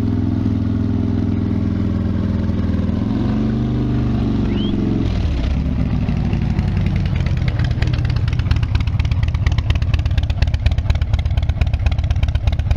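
2016 Harley-Davidson Dyna Wide Glide's Twin Cam 103 V-twin running through Vance & Hines Big Radius exhaust, held steady at about 2,500 RPM, then the throttle is let go and it drops back to a lumpy, pulsing idle about five seconds in.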